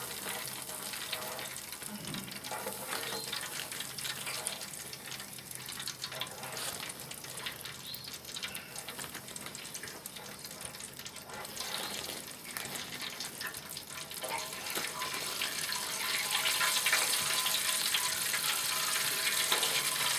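Flour-coated chicken wings frying in a deep fryer's hot oil: a dense crackling sizzle that grows louder near the end.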